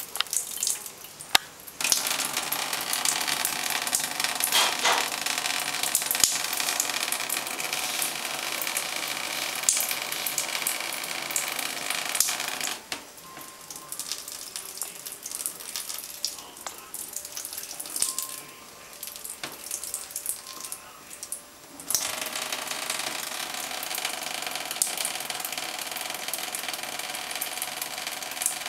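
Shower water running in a shower stall, a steady spraying hiss. It starts about two seconds in, stops for several seconds in the middle and starts again.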